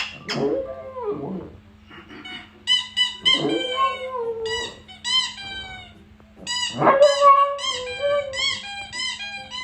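Dog whining and howling: runs of short, high-pitched arching whimpers, several a second, broken by a few lower drawn-out howls.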